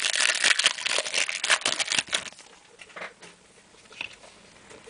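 Trading-card pack wrapper crinkling and tearing as it is ripped open, dense for about two seconds, followed by a few faint handling clicks.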